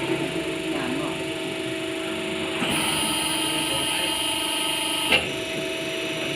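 CNC aluminium arch-bending machine running with a steady motor hum. About two and a half seconds in, a high whine joins, then cuts off with a sharp click about five seconds in.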